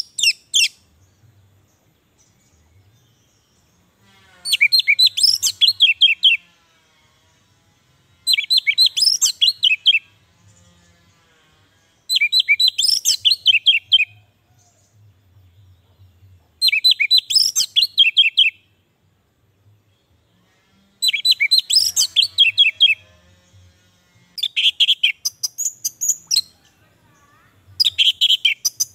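Male orange-headed thrush (anis merah) singing. It gives repeated phrases of about two seconds, each a rapid run of clear high notes, with pauses of two to three seconds between them, about seven phrases in all.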